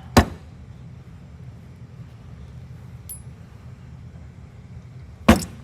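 Two sharp metallic clinks about five seconds apart, small carburetor parts or a tool set down on a hard work surface, each ringing briefly, with a faint tick between them over a low steady hum.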